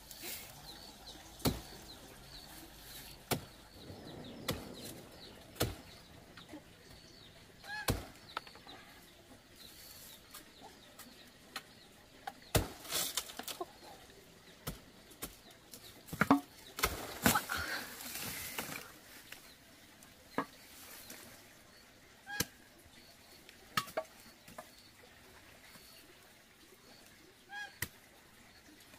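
Scattered sharp knocks and rustling as a bunch of green bananas is cut down from the plant and laid on the ground, busiest about halfway through. Chickens cluck briefly now and then.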